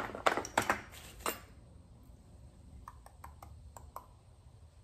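Small metal items and tools knocking and clattering on a workbench as they are handled: several sharp knocks in the first second or so, then a quick run of light clicks around three to four seconds in.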